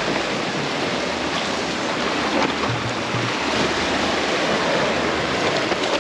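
Ocean surf washing in: a steady, continuous rush of water noise.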